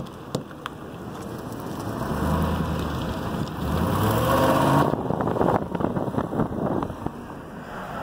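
Car engine pulling in second gear, its pitch climbing steadily for a few seconds and then easing off, with tyre and wind noise. There is no grinding or clacking from the newly replaced front hub bearing: "Nothing but the motor."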